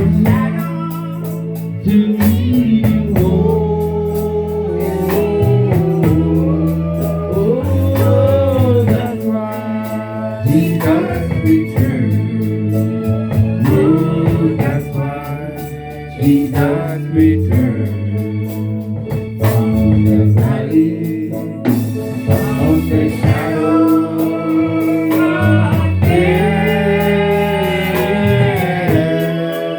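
Gospel song: a voice singing over a band, with held bass notes, guitar and a steady drum beat.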